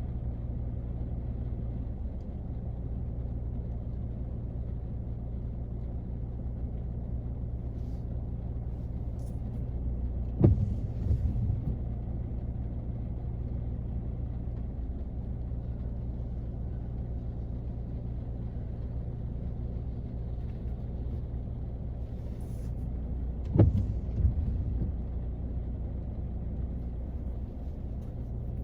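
Rain on a car, heard from inside the cabin as a steady, muffled low rumble. Two sudden thuds break through, one about ten seconds in and one near twenty-four seconds in.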